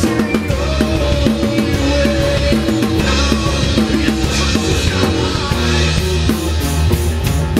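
A live band playing rock music on acoustic guitars, electric bass and a drum kit, with a steady beat.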